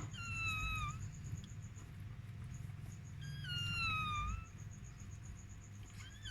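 Newborn chihuahua puppy crying: two thin, high-pitched squeals that fall in pitch, each about a second long, one at the start and one about three seconds in.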